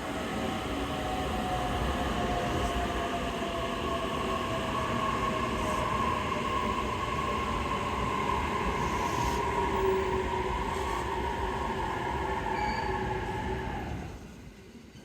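E657-series limited express train running past as it pulls out of the station: steady wheel-on-rail noise with a whine of several held tones. The noise falls away sharply about fourteen seconds in as the end of the train goes by.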